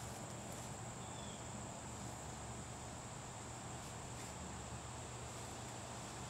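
A steady high-pitched insect trill, unbroken, over a faint low background rumble.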